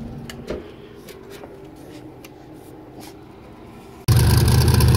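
A few faint clicks and knocks, then about four seconds in a sudden switch to a loud turbocharged LS V8 engine running steadily at idle in a sand car.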